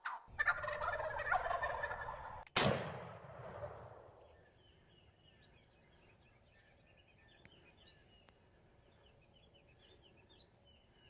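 Wild turkey gobbler gobbling, followed about two and a half seconds in by a sudden loud bang that dies away over a second or so. Faint songbird chirps carry on after it.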